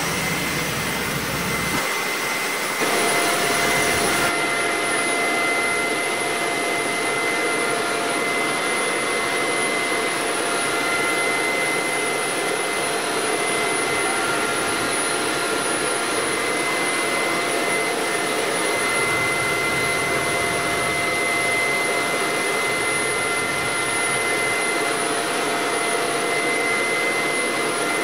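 Steady turbine whine and rushing noise of a Lockheed L-188 Electra heard in its cockpit, with several constant whistling tones over it. About three seconds in it gets a little louder and a further steady tone joins.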